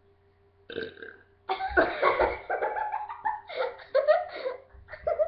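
A girl burping: a short burp about a second in, then a long drawn-out burp of about three seconds whose pitch wavers up and down, and a short one near the end.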